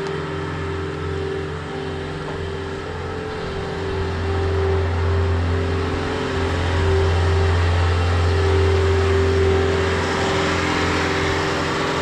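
Bobcat skid steer's diesel engine running as the machine drives up and sets down a big square straw bale; it grows louder about four seconds in as it comes close.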